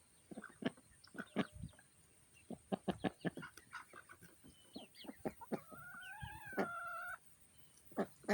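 Backyard chickens clucking in many short, sharp notes. About two-thirds of the way in, one bird gives a single drawn-out call lasting over a second.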